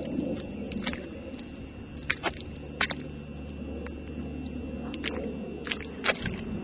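Wellington boots squelching and splashing step by step through shallow water over soft estuary mud, with several sharp wet squelches at irregular intervals over a low steady rumble.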